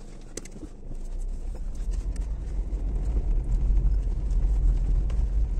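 Dacia Duster driving along a rough dirt and stone track, heard from inside the cabin: a steady low rumble that swells over the first second, with scattered clicks and knocks of stones and ruts under the tyres.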